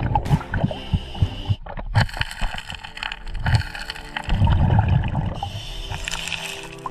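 Muffled underwater gurgling and water movement, swelling and fading, with scattered short knocks, as a diver works among the rocks and gravel of a creek bed.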